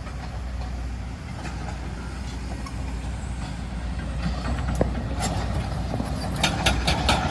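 A steady low engine rumble from a heavy vehicle, with a few short clicks and knocks near the end.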